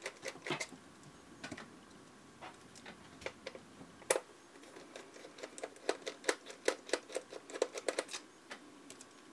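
Light, irregular clicks and ticks of a precision screwdriver turning out the tiny screws under the flip-out screen of a Nikon Coolpix P520 camera body, sparse at first and coming in quick runs later on.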